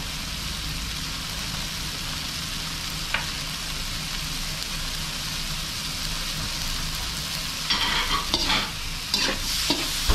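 Beetles sautéing with garlic, onion and tomato, sizzling steadily in a metal wok. A single click comes about three seconds in, and from about eight seconds in a spatula scrapes against the wok in repeated strokes as the mix is stirred.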